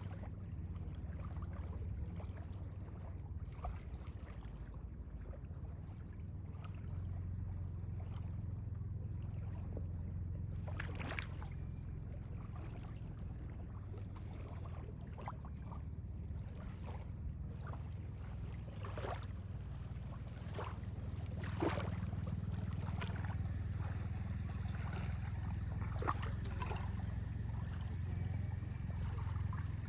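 Steady low rumble of a boat motor running, with water splashing and sloshing against the hull from time to time.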